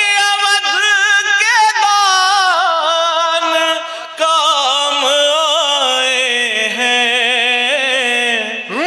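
Man singing a Hindi devotional geet in long, drawn-out phrases with a wavering vibrato, pausing for a short breath about four seconds in.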